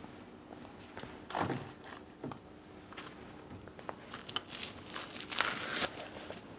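Faint handling noises: scattered light knocks and clicks, with a brief rustle about five seconds in.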